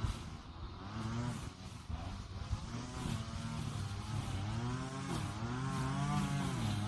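An engine running, with a steady low hum and a pitch that rises and falls again and again.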